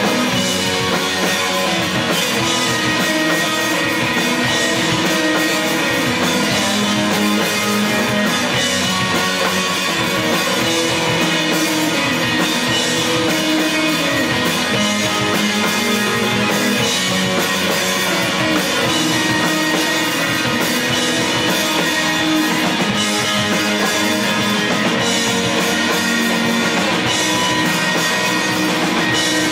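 A live emo/post-hardcore band playing loudly, with electric guitars over a drum kit.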